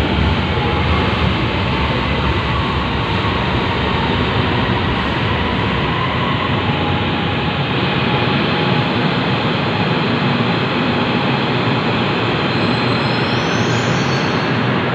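A Rapid KL LRT train running into the platform and drawing to a stop, with a steady rumble of wheels and motors. A faint rising whine comes in near the end.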